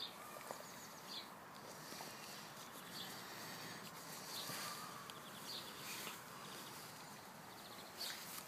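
Quiet garden ambience with faint, scattered bird chirps.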